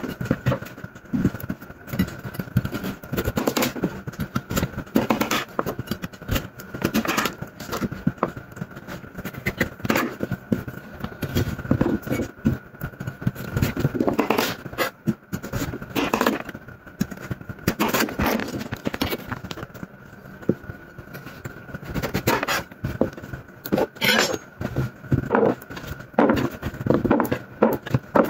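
Kitchen knife slicing through peeled raw sweet potato and knocking down onto a wooden cutting board, in irregular chops about one a second. A steady faint whine sits underneath.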